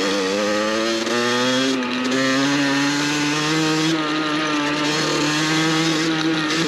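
Beta RR 50's 50 cc two-stroke single-cylinder engine revving high under way. Its pitch climbs over the first couple of seconds and then holds, with a few brief dips as the throttle is eased.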